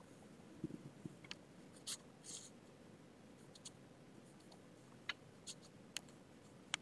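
Faint, scattered small clicks and a few brief scratchy strokes, with two soft low knocks about a second in: handling noise at a desk.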